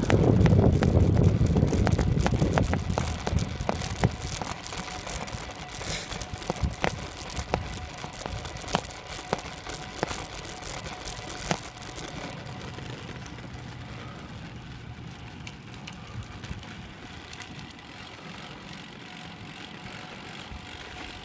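A bicycle rolling along a rough gravel road. Wind rushes over the microphone at first, then comes a run of sharp clicks and rattles from the tyres and bike on the gravel. The sound eases to a quieter steady rolling noise in the second half.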